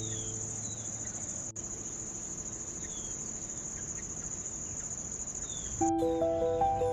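A steady, high-pitched trill of crickets. Background music fades out in the first second and starts again near the end.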